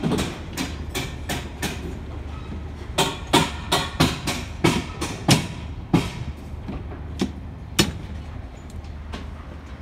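Steel reinforcing bars of a slab's rebar mesh clanking under footsteps, sharp metallic knocks at about two to three a second with a couple of short pauses, over a steady low hum.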